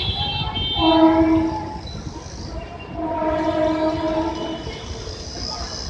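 Train horn sounding twice: a blast about a second in and a longer one near the middle, over a steady low rumble.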